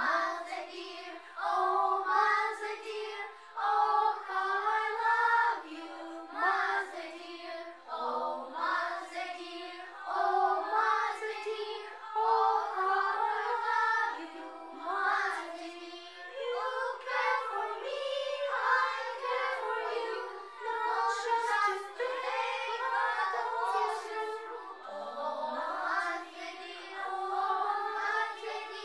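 Young children singing a song together in unison, phrase after phrase.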